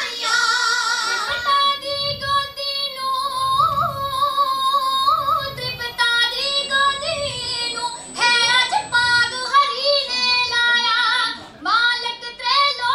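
Girls' voices singing kavishri, the Punjabi folk-ballad style, through microphones in high, ornamented phrases with wavering pitch, each phrase lasting a second or two.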